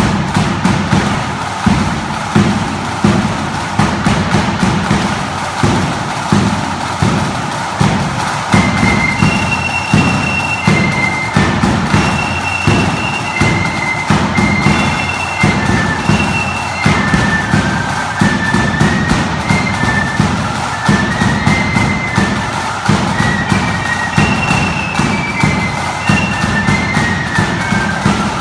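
A flute band playing: a row of marching side drums keeps up a steady beat, and about eight or nine seconds in the flutes come in with a high, stepping melody over the drums.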